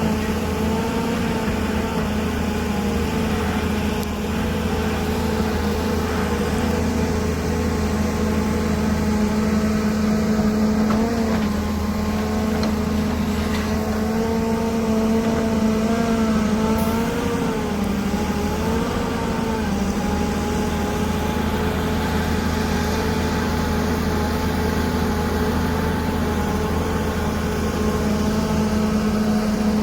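A Volvo excavator's diesel engine running steadily while it works, its pitch dipping briefly a few times as the load changes.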